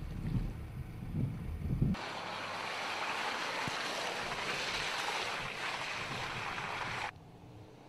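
Mercedes-Benz GLK driving on a dirt track: uneven low rumbling and wind buffeting on a camera mounted by the wheel. About two seconds in this gives way to a steady rushing noise as the SUV drives past, which cuts off abruptly about seven seconds in.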